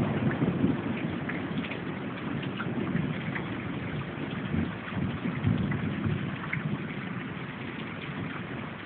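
Steady rain falling, with scattered drop ticks and low rumbles of thunder, one at the start and another about five seconds in.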